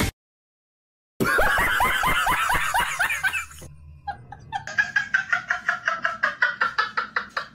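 Laughter breaks in after about a second of dead silence, in quick bursts that each fall in pitch. After a short lull comes a second, higher-pitched run of rapid, evenly paced laughs.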